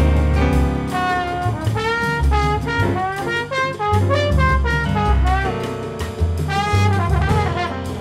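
Small jazz ensemble playing: saxophones and trombone carry a wavering melodic line over deep double-bass notes and drum kit with frequent cymbal strikes.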